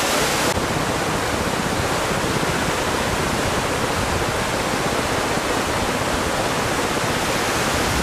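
Muddy river in flood after heavy rain, its fast water rushing by in a steady, loud noise with no let-up.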